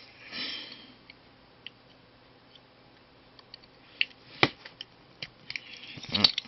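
Small metal precision tool clicking and scraping against the rim of a wristwatch's metal case back as it is pried off. The clicks come sparsely at first and more often in the second half, the sharpest about four and a half seconds in.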